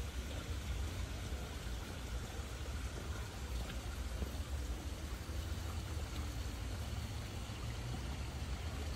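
Steady rushing hiss, like running water, over a low rumble.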